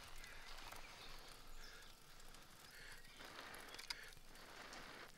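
Quiet outdoor ambience: a faint hiss with a single sharp click about four seconds in.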